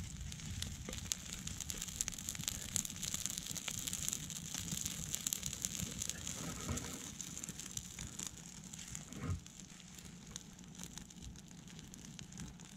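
Small, newly lit wood fire crackling, with many quick snaps over a steady hiss as it takes hold.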